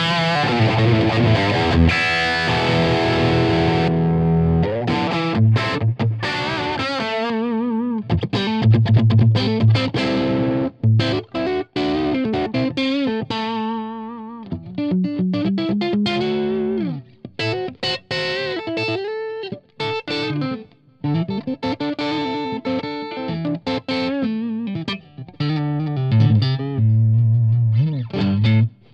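Electric guitar played through a Carlsbro PA 60 tube amp rebuilt as a two-channel guitar amp, with overdrive. Dense distorted chords ring for the first four seconds or so, then a lead line of sustained single notes with wide vibrato.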